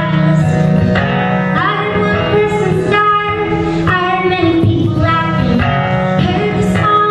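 A woman singing a folk song live, accompanied by a plucked acoustic guitar.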